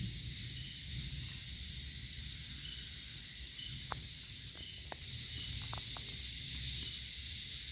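A steady high-pitched hiss over a low rumble, with a few faint clicks midway.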